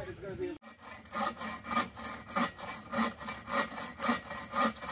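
Hand saw cutting through a branch of firewood in steady back-and-forth strokes, about three a second. A man's voice breaks off just before the sawing starts, about half a second in.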